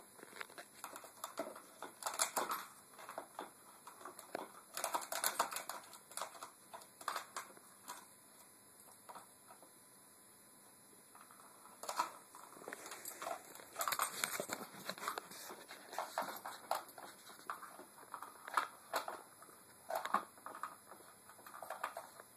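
Cardigan Welsh Corgi puppy pawing and mouthing a plastic ball-track cat toy: irregular bursts of clattering, clicking and scraping, with a lull of a few seconds in the middle.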